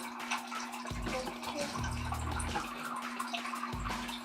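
Aquarium filter running, water trickling and splashing steadily, with a steady low hum and a deeper pulse that swells and fades about every two seconds.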